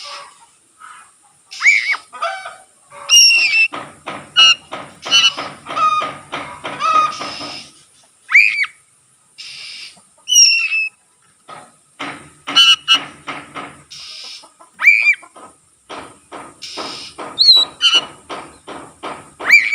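Oriental magpie-robin singing loudly in phrases: clear whistled notes that glide up and down, mixed with fast runs of short chattering notes, broken by brief pauses.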